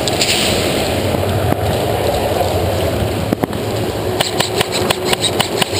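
Steady rushing noise for about four seconds, then a quick string of sharp clacks from airsoft guns firing.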